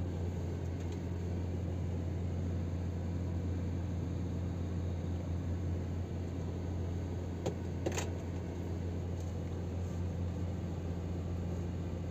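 Scania R500 truck's 13-litre inline-six diesel idling steadily, heard as a low hum inside the cab while the truck stands still. Two short clicks come about seven and a half seconds in.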